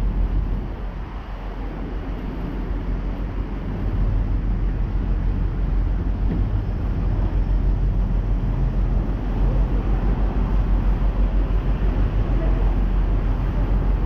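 Engine of a passenger river cruise boat under way, running with a steady low drone over the rush of wind and water. It gets louder about four seconds in and then holds steady.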